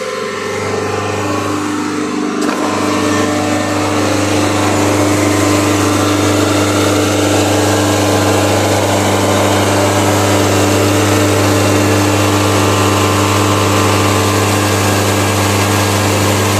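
Tata Harrier's 2.0-litre Kryotec 170 four-cylinder turbo-diesel running steadily during a forced DPF regeneration. It grows louder over the first few seconds, then holds an even hum.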